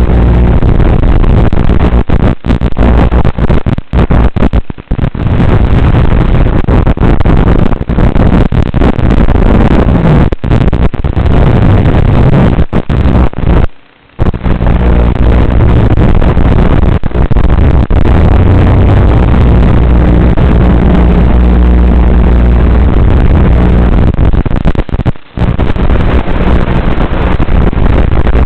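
Loud hiss and low buzz of static from an analog FPV video receiver, with brief dropouts several times, the longest about halfway through. It carries radio interference on the video link.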